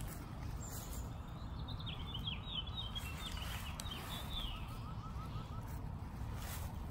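A songbird singing: a quick twittering phrase of high chirps, then a short run of about eight evenly repeated lower notes, over a steady low rumble. A few soft steps in flip-flops on grass.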